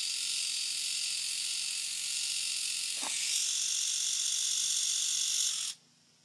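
Small electric eyebrow razor buzzing steadily as it shaves an eyebrow, with a click about halfway through; it cuts off suddenly near the end.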